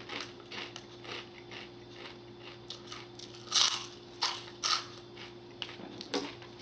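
Someone biting into and chewing crunchy pork rinds: irregular crisp crunches, with a few louder bites near the middle, over a steady low hum.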